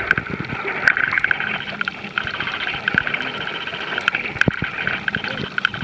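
Underwater sound picked up by a submerged camera: a steady crackling hiss with scattered sharp clicks, and a few bubbling gurgles near the end.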